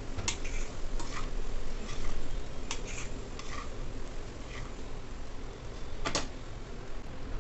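A steel spoon clinking and scraping against a steel pan as fried rice is stirred and tossed, with irregular clicks, the loudest about six seconds in.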